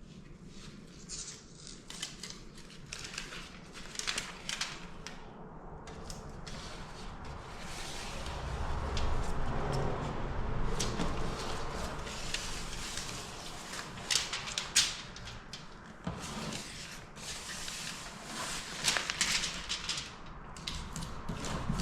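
Metal foil tape being handled and its backing paper peeled: irregular crinkling and crackling, with a low rumble of handling partway through.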